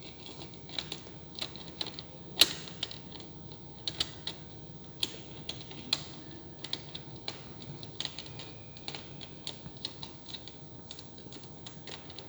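Irregular sharp plastic clicks and taps, one or two a second, the loudest about two seconds in, as small screw-cover caps are fitted onto the plastic housing of an HP all-in-one PC.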